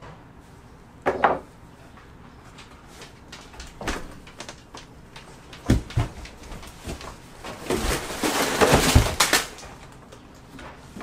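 A person clambering in through a window over a counter: a sharp knock about a second in, a few more thumps, then a longer scraping, rustling scuffle near the end, the loudest part.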